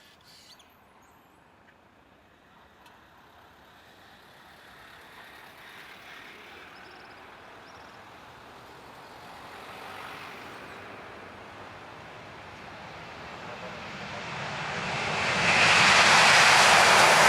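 Airbus A330-200 jet engines at takeoff thrust during the departure roll, faint at first and growing steadily louder, then swelling sharply to loud about fifteen seconds in as the airliner comes close.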